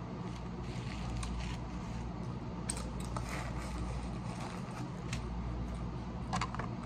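Quiet eating sounds: chewing, with scattered small clicks and crackles, and a paper napkin rubbing at the mouth partway through, over a steady low hum.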